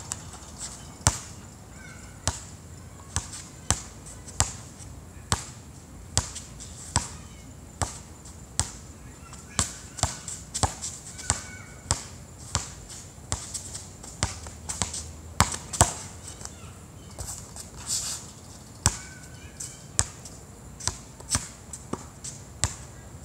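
A basketball bouncing on a hard outdoor court: sharp single bounces at uneven intervals, about one or two a second, as the ball is dribbled and shot.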